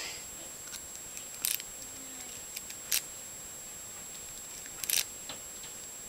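Small metallic clicks of a hook pick and tension wrench working the pins of a brass five-pin padlock cylinder: three sharper clicks, with a few fainter ticks between them.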